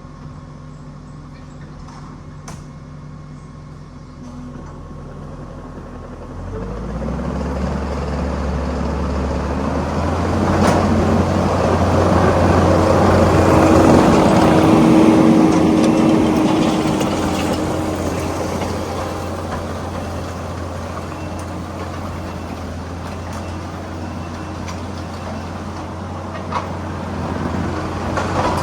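Tractor's diesel engine idling, then throttled up about six seconds in and running harder and louder as it works, loudest around the middle, then holding steady, with a few sharp clanks.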